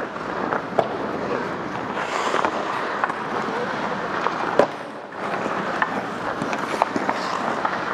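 Ice hockey practice on the rink: skates scraping across the ice and hockey sticks and pucks clacking, with one sharp crack about four and a half seconds in.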